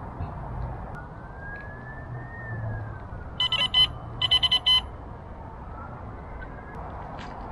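Carp bite alarm sounding in two quick bursts of high electronic beeps, about three and then about five, as line is pulled through it.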